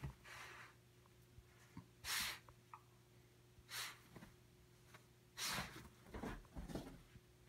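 A Basenji playing on a bed: four short hissing bursts a second or two apart, then soft thumps and rustling of the bedding about six to seven seconds in.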